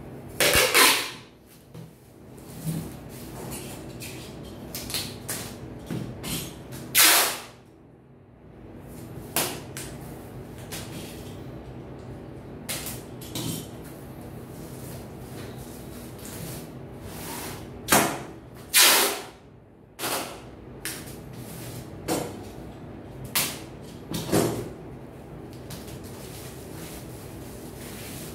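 Clear packing tape being pulled off its roll in several long rasping strips and pressed onto a cardboard box, with handling rustles and taps between. Two pulls come close together around eighteen to nineteen seconds in.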